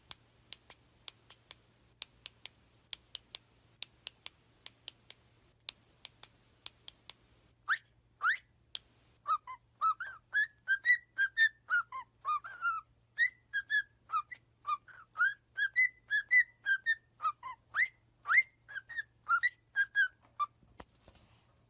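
A parrot whistling a quick run of short, chirpy notes, many sliding upward, starting about eight seconds in. Before that there is a string of sharp, irregular clicks.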